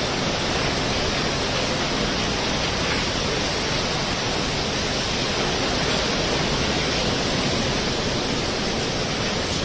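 Strong cyclone wind and rough sea: a steady, unbroken rushing noise that neither rises nor falls.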